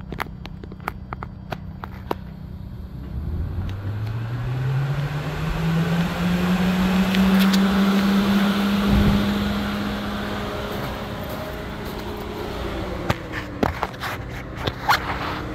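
Speed Daddy electric radiator cooling fan switched on and spinning up: a whine rising in pitch over about four seconds over a growing rush of air, then running steadily and easing a little near the end, with handling clicks. Only one fan of the pair runs; the other side is defective and stays dead.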